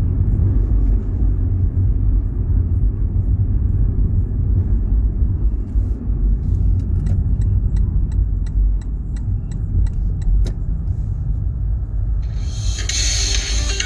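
A car driving, with a steady low rumble of engine and road noise. Midway there is a run of regular ticks, about two a second, for a few seconds, and music starts about a second before the end.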